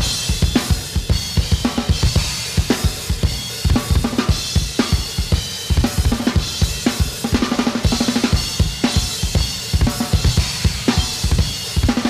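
Outro music with a driving drum kit: fast bass drum and snare hits with cymbals and hi-hat.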